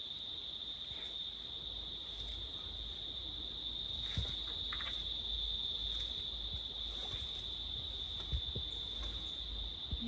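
Insect chorus: a steady high-pitched drone, with two short knocks about four and eight seconds in.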